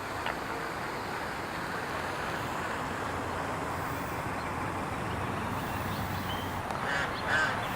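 Steady background hum of distant road traffic heard outdoors, with a few faint bird calls near the end.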